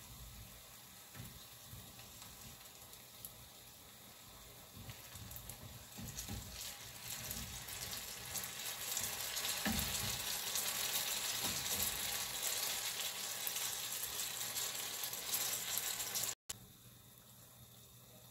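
Banana turon (banana spring rolls) frying in hot oil in a pan, sizzling, growing louder from about six seconds in, with soft knocks of metal tongs turning the rolls. The sizzle cuts off abruptly near the end, then comes back fainter.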